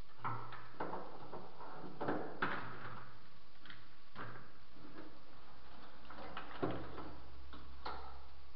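Scattered metallic clicks and knocks of hand tools being handled during work on a car engine, about eight at irregular intervals, the sharpest about two and a half seconds in, over a faint steady hum.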